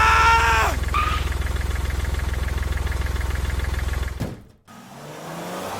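Vehicle engine idling, a steady low rumble with an even beat, that cuts off about four seconds in; a quieter rising whine follows near the end. A short high pitched sound rings over the engine in the first second.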